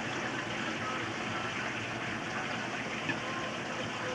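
Aquarium filters and pumps running: a steady rush of water, with a single short tap about three seconds in.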